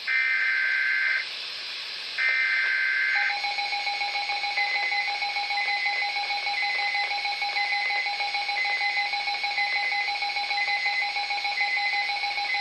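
Emergency alert broadcast tones: two bursts of buzzing SAME header data, each about a second long and a second apart, followed by a long steady attention tone of several pitches with a short higher beep about once a second.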